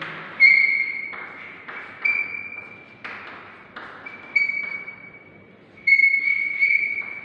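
Chalk writing on a blackboard: scratchy strokes with a high squeal, the squeal coming four times for about a second each.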